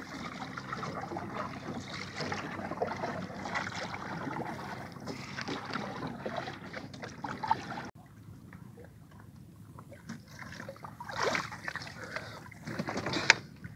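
Water sloshing and lapping against a small wooden outrigger canoe while a hand line is worked over the side. The sound drops abruptly about eight seconds in, followed by a couple of splashes near the end, the last one sharp, as wet line is hauled up dripping.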